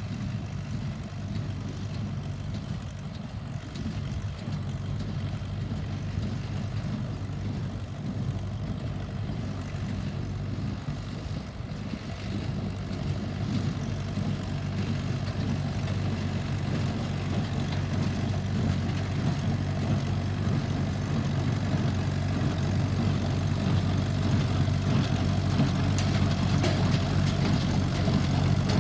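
International Harvester 434 tractor's engine running steadily while it pulls a working Deutz-Fahr baler, growing gradually louder.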